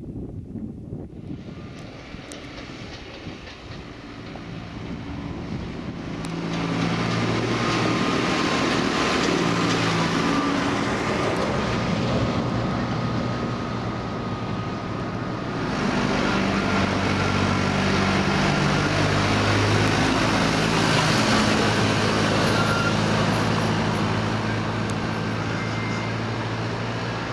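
Diesel farm tractor running under load while it tows an empty metal tipping trailer that rattles along the road. The sound grows louder over the first several seconds as the tractor approaches.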